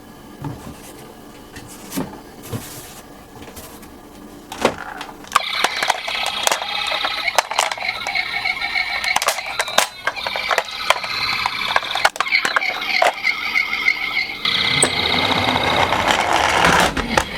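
Toy ambulance and bus minicars on a slope: a few light knocks at first, then from about five seconds in a continuous high-pitched sound with many small sharp clicks.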